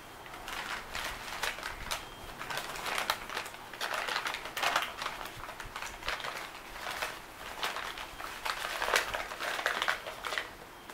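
Old yellowed newspaper crinkling and rustling in irregular bursts as it is pulled away by hand from small wrapped glasses.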